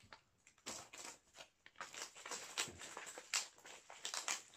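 Bubble wrap and packing tape being pulled apart by hand: irregular crinkling and crackling, with some tearing, getting busier about half a second in.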